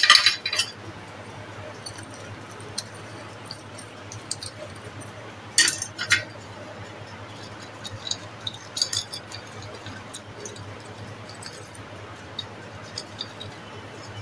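Aluminium cupcake moulds clinking against a metal muffin tray as they are lifted, greased and set back down. A few sharp clinks, at the start and twice about five and a half to six seconds in, with lighter taps between.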